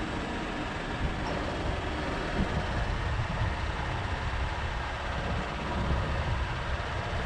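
Steady vehicle noise: a low, uneven rumble under an even hiss, with no distinct events.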